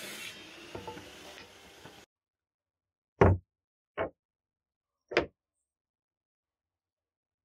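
Wood router motor winding down, with a few light knocks, then cut off about two seconds in. After a silence come three short, loud thumps, a second or so apart.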